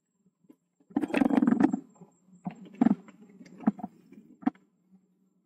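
Mountain bike riding down a rough dirt trail: a burst of rattling about a second in, then several separate sharp knocks as the bike and tyres go over bumps.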